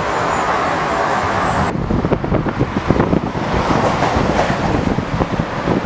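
Wind buffeting an outdoor microphone in gusts, a rough, uneven rumble. It starts with an abrupt change about two seconds in, where a steadier hiss cuts off.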